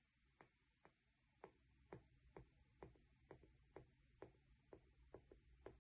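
Faint, quick taps of a dotting tool dabbing drops of paint onto an acrylic-poured canvas, repeating steadily about every half second.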